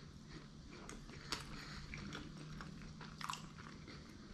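A person chewing food, quiet wet mouth clicks and smacks, with a sharper click about a second in and another near the end.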